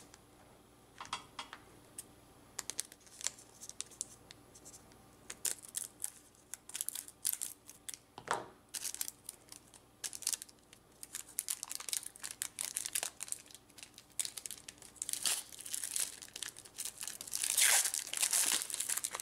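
A trading card booster pack wrapper being torn open and crinkled by hand. Irregular sharp crackles continue throughout, with a longer, louder stretch of ripping and crinkling near the end.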